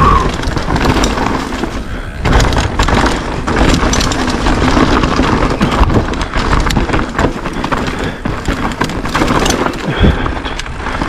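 Downhill mountain bike run over rough ground: a steady, loud rumble of wind and rolling tyres with constant clattering knocks from the bike.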